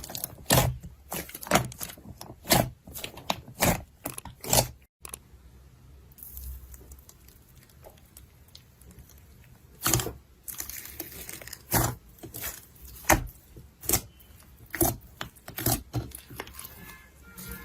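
Slime being worked by hand, making sharp pops and crackles several times a second. It cuts off about five seconds in, then a quieter stretch of soft rustling follows before the pops start again about ten seconds in.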